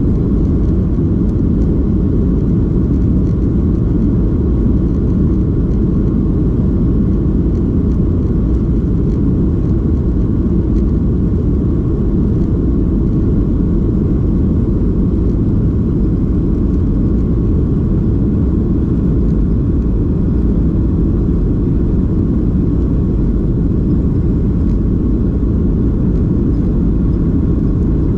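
Boeing 737-800's CFM56-7B engines and the rumble of the jet rolling along the runway, heard inside the cabin by a window over the wing: a loud, steady low rumble that holds level throughout.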